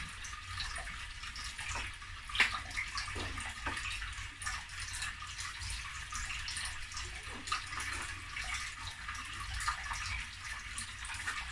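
Butter sizzling in a frying pan on the hob, a steady hiss full of small crackling pops, with the clicks of a knife on a wooden chopping board, the sharpest about two and a half seconds in.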